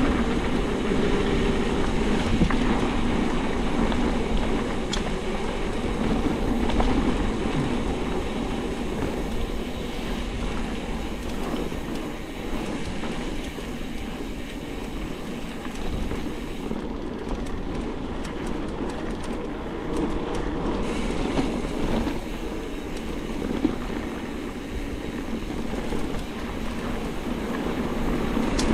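Mountain bike ridden downhill over a rough dirt trail: a continuous rushing noise full of small rattles and knocks from the bike, a little quieter through the middle.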